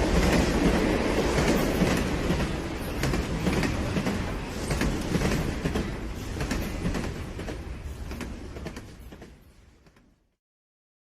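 A rumbling, clattering noise with many quick clicks, fading away and stopping about ten seconds in.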